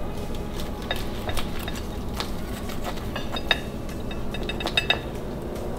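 Knife and fork clicking and scraping against a plate while cutting into a roasted whole duck, with small clusters of sharper, briefly ringing clinks about three seconds in and again near five seconds.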